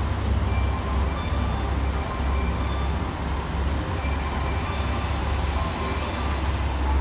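Red JR West diesel railcar pulling slowly into a station platform: a steady low engine and wheel rumble, with a brief high squeal about two and a half seconds in that lasts about a second.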